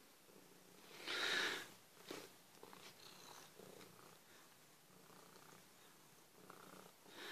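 Domestic cat purring steadily while its head and cheeks are patted and rubbed by hand. About a second in, a brief louder rustle stands out over the purr.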